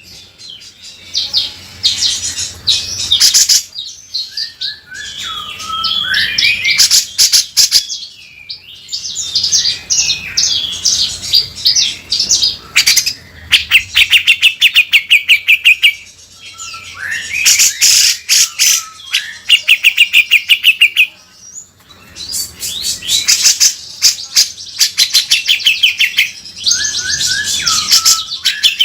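Cucak jenggot (grey-cheeked bulbul) singing loud, harsh, rasping phrases ('beset kasar'). The phrases are made of fast runs of repeated chattering notes and rapid trills, separated by short pauses.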